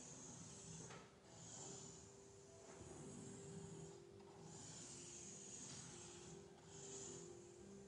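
Faint scratching of a compass's pencil lead on paper as circles are drawn, coming in several short strokes with brief pauses between them.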